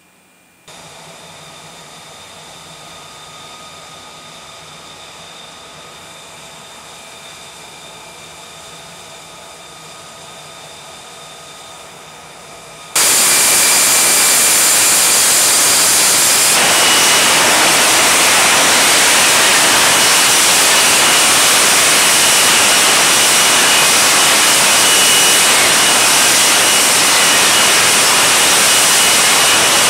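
F-35B Lightning II's Pratt & Whitney F135 jet engine running: a steady whine with several high tones, then, a little under halfway through, a sudden jump to a much louder, steady rushing jet roar.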